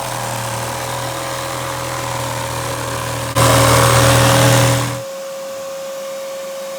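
Power tool cutting open a wall with a dust-collecting vacuum running. The tool runs steadily, gets louder just over three seconds in, and stops about five seconds in, leaving the vacuum's steady whine.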